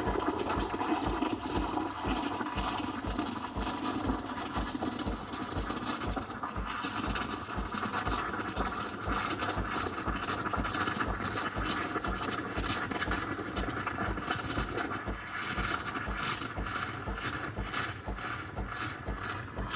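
Breville Barista Pro steam wand steaming and frothing milk in a jug: a steady hiss with a regular low pulse a few times a second.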